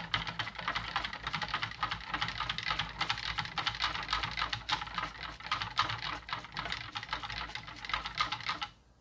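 Wire balloon whisk beating a thin liquid in a plastic bowl: a fast, steady clatter of wire ticks against the bowl that stops suddenly near the end.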